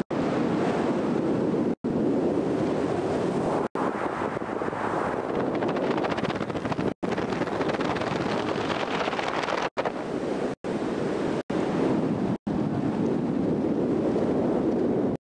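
Steady wind rushing over the microphone of a camera flown under a ram-air parachute canopy. It is broken several times by brief, sudden gaps of silence.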